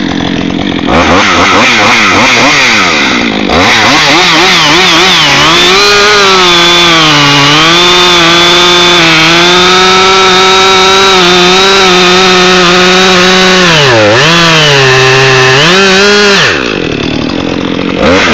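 Husqvarna 562 XP two-stroke chainsaw blipped up and down a few times, then held at full throttle through a long cut, its pitch sagging a little under load and recovering. It drops back off throttle near the end.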